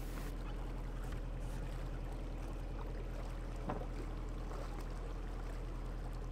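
A narrowboat's diesel engine running steadily under way, a low even hum.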